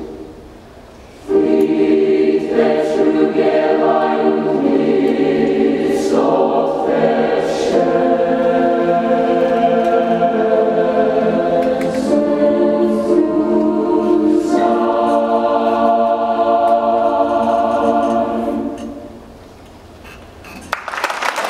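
Mixed choir singing sustained chords in a reverberant hall; the sound dips at the start and the singing comes back in about a second in. Near the end the final chord is released and dies away in the hall, and applause starts at the very end.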